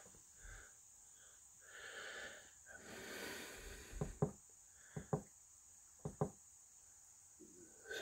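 Three faint pairs of clicks about a second apart as the SELECT push-button on an Epever MPPT solar charge controller is pressed and released, stepping through its display readings. Faint breathing comes before the clicks.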